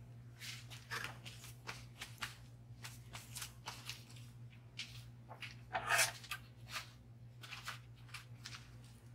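Bars of pine tar soap being handled and cut at a plastic wire soap cutter: irregular crisp clicks, taps and scrapes, with a louder cluster about six seconds in. A low steady hum runs underneath.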